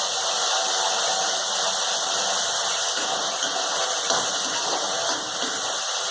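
Onion and garlic paste frying in hot oil in a kadhai, a steady sizzling hiss.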